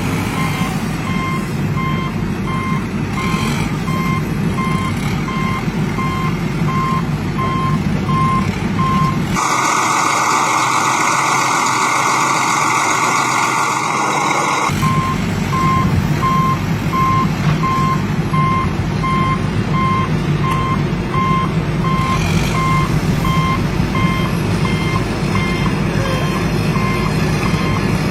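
Reversing beeper of a toy construction truck, sounding rapid, evenly spaced electronic beeps over a low engine-like rumble. For about five seconds in the middle the beeps and rumble stop and a loud hiss takes over, then the beeping resumes.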